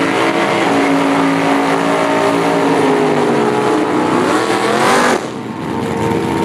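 Drag race car's engine at full throttle running away down the strip, its note bending up in pitch near the end. About five seconds in the sound drops off abruptly as the throttle closes at the end of the pass, leaving a quieter, steadier engine note.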